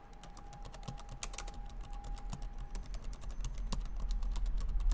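Rapid typing on a computer keyboard: a quick, continuous run of key clicks.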